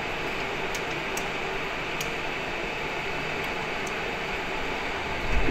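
16K20 screw-cutting lathe running with a steady hum and hiss, with a few faint light ticks. Near the end the sound suddenly gets louder.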